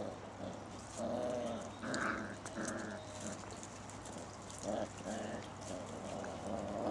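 Six-week-old basset hound puppies play-fighting, giving short puppy growls in several brief bursts.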